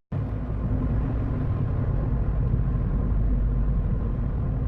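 Car driving in traffic: a steady low rumble of engine and road noise.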